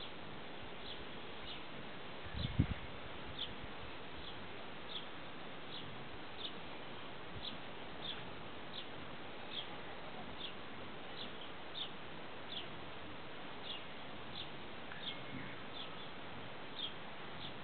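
A short high chirp repeating regularly, about every 0.7 s, over a steady background hiss, with a single low thump about two and a half seconds in.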